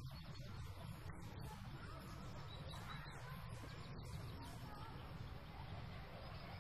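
Quiet room tone: a steady low hum with faint bird calls.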